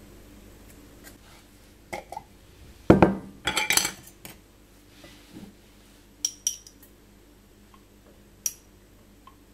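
Cookware and utensils being handled: pots, pans and metal utensils knocked and set down. There is one heavy knock about three seconds in, then a quick run of clinks, and a few sharp single clinks later on.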